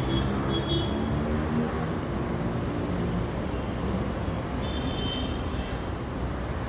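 Steady road traffic noise, a continuous low rumble.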